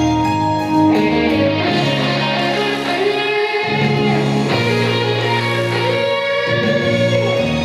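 Song accompaniment in an instrumental passage: guitar over held chords that change every few seconds.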